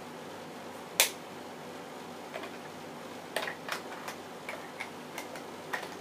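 Plastic clicks and taps as small Shopkins toy figures are handled and placed into a plastic toy fridge playset: one sharp click about a second in, then a scatter of lighter ticks.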